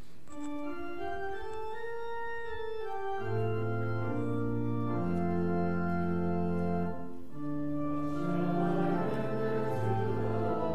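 Church organ playing slow sustained chords as the introduction to the sung offertory, with deep bass notes coming in about three seconds in.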